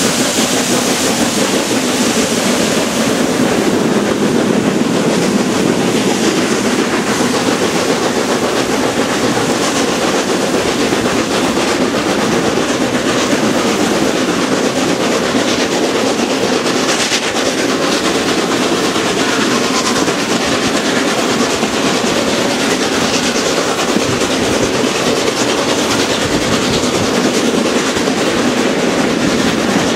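Several steam saddle-tank locomotives at the head of a passenger train working hard together, their exhausts merging into one steady, dense thrash. Heard from an open carriage window, with the train's running noise underneath.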